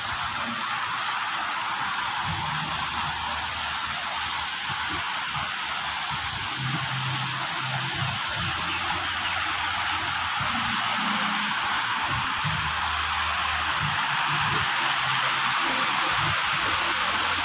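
Steady rushing and splashing of water running down water-park slides and mushroom fountains into a pool.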